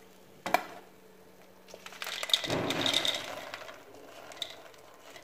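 A sharp metal knock about half a second in. Then a strainerful of fried boondi is tipped onto a steel plate, the small fried beads rattling and clinking on the metal for about a second and a half.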